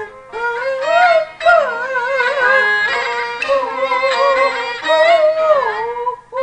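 Peking opera music: a bowed Chinese fiddle, the jinghu typical of the genre, plays a sliding, wavering melody over the accompanying ensemble, with brief pauses near the start.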